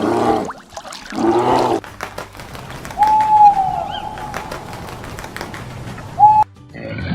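Farm animal calls: two short calls about a second apart, then one long, high, steady call lasting about three seconds. It cuts off suddenly near the end.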